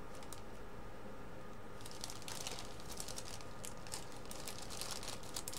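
Faint rustling and small clicks of paper and cardboard packaging being handled, growing busier about two seconds in, over a steady low room hum.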